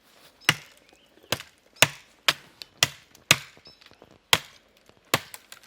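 Hand-forged knife chopping into a small black wattle tree: about nine sharp blows into the wood, roughly two a second, with a brief pause partway through.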